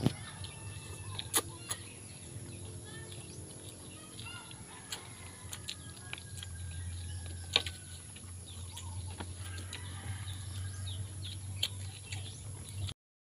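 Quiet eating sounds at a table: scattered sharp clicks and crackles of shrimp being peeled and chewed by hand, over a steady low hum, with birds chirping faintly. The sound cuts off suddenly near the end.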